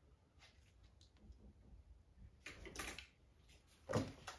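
Faint clicks and rustles of metal cookie sheets being handled on a table, with a brief louder clatter about four seconds in.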